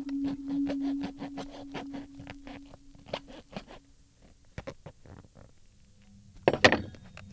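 A metal table knife scraping and sawing at black plastic sheeting in quick strokes, about four or five a second, then a few slower scrapes. About six and a half seconds in comes a louder sharp burst as the plastic gives way around the blade.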